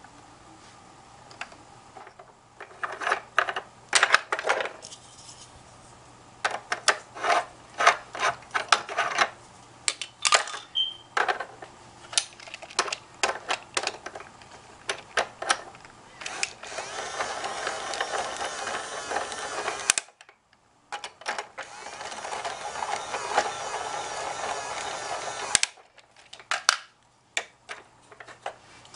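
Hard plastic toy parts clicking and knocking as they are handled. Then a battery-powered toy drill whirs twice, for about three and a half seconds and then about four and a half seconds, backing a plastic screw out of the toy truck's engine block.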